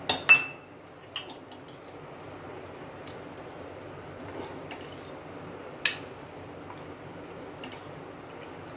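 Stainless-steel ladle clinking against a steel pot and serving bowl as dal is ladled out. It makes a handful of sharp metallic clinks, the two loudest right at the start and another strong one about six seconds in, over a steady low hiss.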